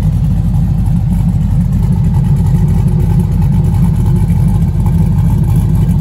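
LS6 V8 idling steadily, heard at its dual exhaust tips, after a bearing rebuild.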